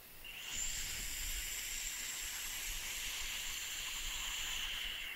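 Electronic cigarette (vape) during one long drag: a steady hiss with a thin high whistle that starts about half a second in and stops near the end.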